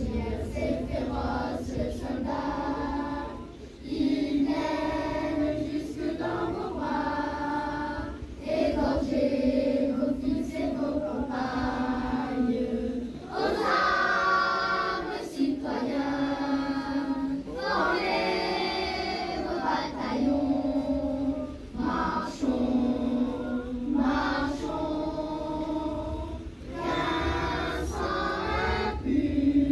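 Children's choir singing in long held phrases, with short pauses for breath every few seconds.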